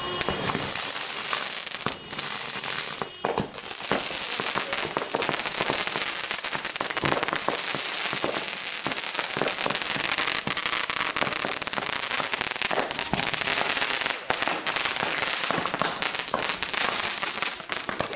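Consumer fireworks going off in quick succession: launches hissing upward and a dense run of crackles, pops and bangs.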